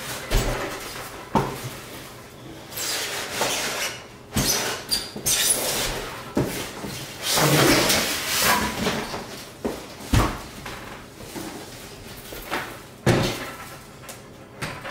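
Unpacking noise: cardboard box and packing rustling and scraping, with a series of sharp knocks and thumps as a stainless steel brewing kettle is lifted out of its box and stood on a table.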